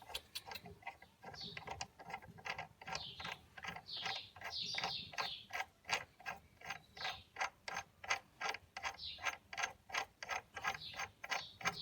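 Hand ratchet wrench being worked back and forth, its pawl clicking in a steady rhythm of about three clicks a second.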